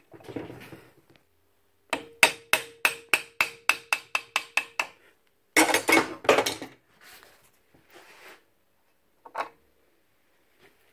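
A hammer tapping a bearing out of the DW718 miter saw's warmed housing: about a dozen quick, ringing metal taps, roughly four a second. A louder, short clatter follows about two seconds later.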